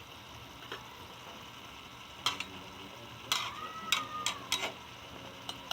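A cooking utensil knocking and scraping in a pan while stirring. There are several sharp clinks, most of them bunched between about two and five seconds in.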